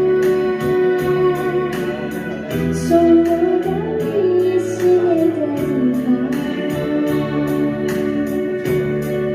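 Music: a melody that slides up and down in pitch over sustained organ-like chords, with a steady beat.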